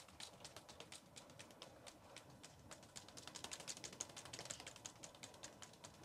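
Foley prop flapped to imitate a butterfly's wing beats: a faint, rapid run of light ticks, several a second.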